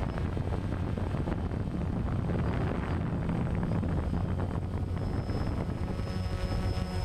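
DJI quadcopter's electric motors and propellers buzzing steadily, picked up by the GoPro Hero3 mounted on it, with wind on the microphone. A thin higher whine joins in near the end.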